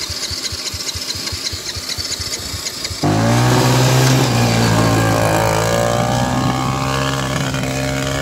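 ATV engine running with an even putter, then about three seconds in jumping suddenly to high revs and staying there with its throttle zip-tied open as the quad drives off on its own.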